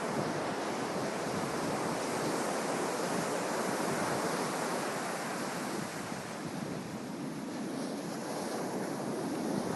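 Ocean surf washing ashore: a steady rushing noise that swells and eases slightly.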